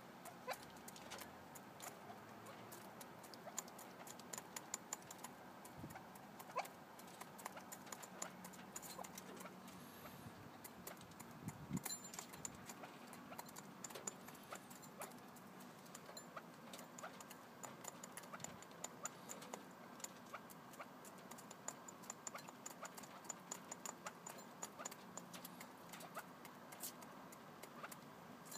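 Red-legged partridges pecking at pellets in a bowl: a steady scatter of quick, faint ticks and taps.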